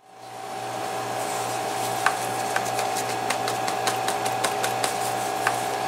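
Old thread being picked out of a leather holster's stitch line with a slim metal tool: irregular light clicks and ticks, coming more often near the end, over a steady electrical hum.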